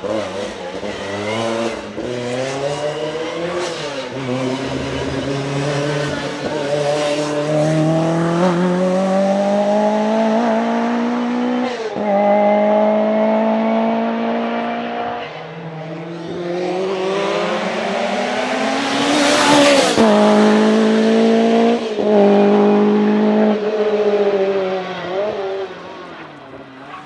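Lancia Rally 037's supercharged 2.0-litre four-cylinder engine accelerating hard through the gears, its pitch climbing and then dropping sharply at each upshift. The car passes close about two-thirds of the way through, then fades into the distance.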